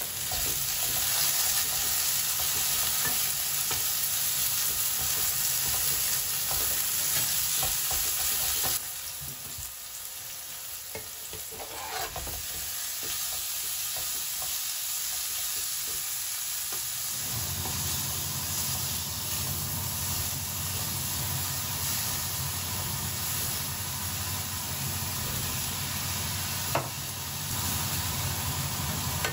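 Food frying and sizzling in a nonstick pan while a spatula stirs and scrapes it: onions and garlic, then minced meat. The sizzle drops quieter about nine seconds in, and a low steady hum joins a little past halfway.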